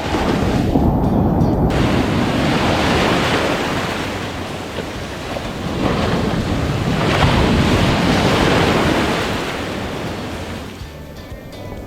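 Surf breaking and washing up on a beach in two long swells, with wind buffeting the microphone.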